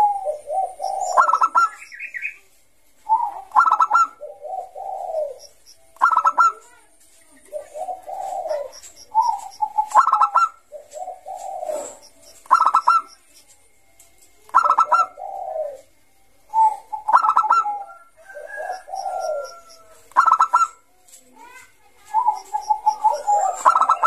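Bangkok-type zebra dove (perkutut) singing its cooing song: phrases of a low coo followed by quick rippling notes, repeated about every two to three seconds.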